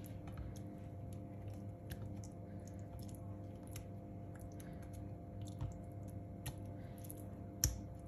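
Fingers handling and turning raw salmon fillets on a plate while rubbing in salt and black pepper: faint soft squishing with light scattered ticks, and one sharper knock near the end.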